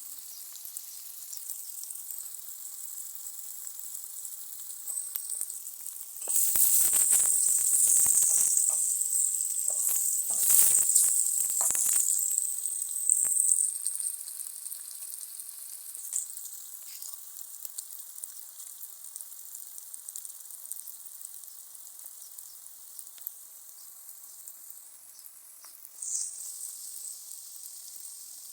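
Onions and garlic sizzling in hot cooking oil in a frying pan. The sizzle swells loudly between about 6 and 14 seconds in, with scraping strokes as the pan is stirred, then settles back to a steady hiss.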